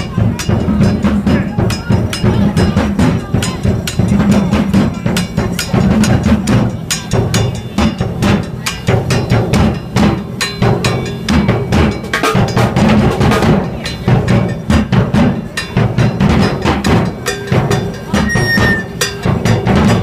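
Music with drums and hand percussion keeping a steady beat.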